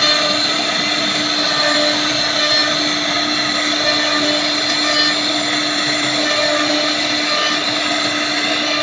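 CNC wood router running steadily, a constant hum and high whine over a rushing noise.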